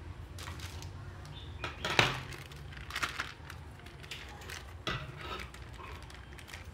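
Thin plastic bag of slime crinkling as it is handled, with a few sharp knocks and metallic clinks of scissors on a wooden tabletop; the loudest knock comes about two seconds in.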